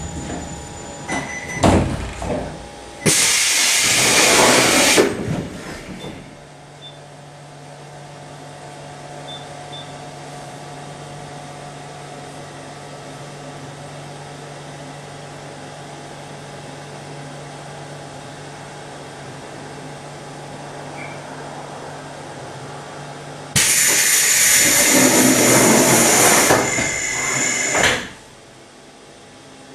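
Standing 711-series electric train: a loud burst of compressed-air hiss a few seconds in, a steady low hum, then a second, longer hiss near the end, from the train's pneumatic brakes and air-operated doors.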